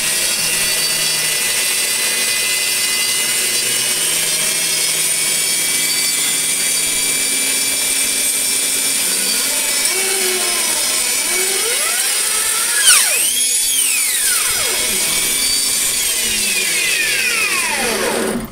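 Band saw running and cutting lengthwise through a wooden hammer handle fed on a miter-gauge sled. A steady whine, with the pitch swinging up and down a few times in the second half and a brief louder moment a little past the middle.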